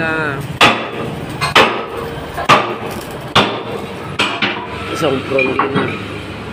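Hammer striking metal in slow, regular blows, four loud strikes a little under a second apart, followed by several lighter knocks.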